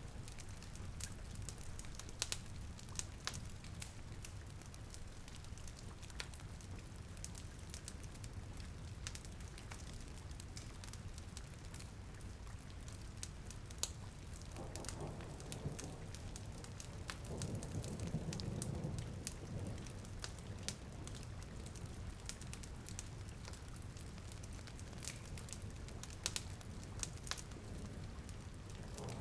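Rain and a crackling fireplace as a steady ambient bed: an even rain hiss and low rumble, with sharp crackling pops scattered throughout. A soft, low rustling swell rises about fifteen seconds in and fades a few seconds later.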